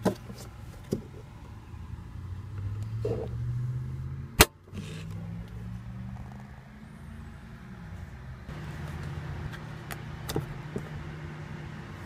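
Low steady hum inside a car's cabin, with a few faint handling clicks and one sharp loud click about four and a half seconds in.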